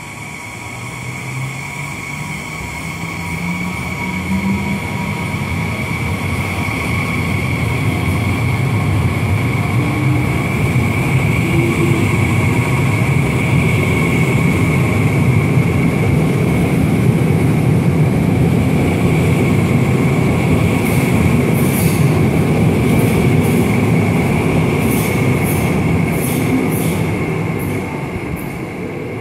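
ETR 400 Frecciarossa 1000 high-speed electric train departing through an underground station: its traction drive whines with a rising pitch as it pulls away, then the train rumbles past, loudest mid-way, and fades as it recedes into the tunnel. A run of sharp clicks comes near the end.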